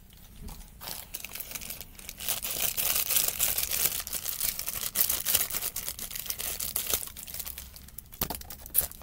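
Plastic Amazon mailer bag rustling and crackling as it is handled and cut open with scissors. A dense run of crackles starts about two seconds in and eases off after about seven seconds.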